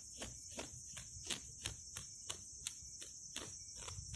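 Crickets and other insects chirring steadily, faint, with regular soft clicks about three times a second.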